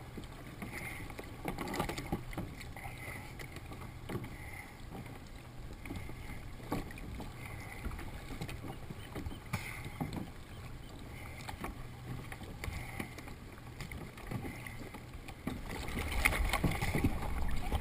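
Water lapping against a plastic sit-on-top kayak, with scattered light knocks from gloved hands and gear on the hull, muffled through a waterproof camera housing. The water noise grows louder near the end.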